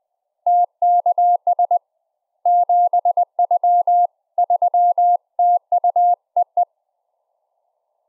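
Morse code: a single clean CW tone keyed in dots and dashes, in three runs with short pauses between, stopping shortly before the end. It is a CW keyer's speaker output picked up by an EMF pickup coil, bandpass-filtered and relayed over Mumble.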